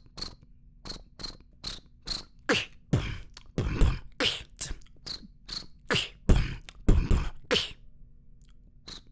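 Beatboxing: a rhythmic beat of sharp mouth clicks and deep kick-drum hits, with short high chirps between them imitating a cricket. The beat stops about a second before the end.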